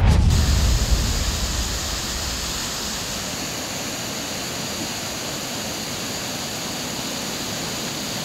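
River rapids: white water rushing over rocks with a steady, even rush, deeper and louder in the first second or so.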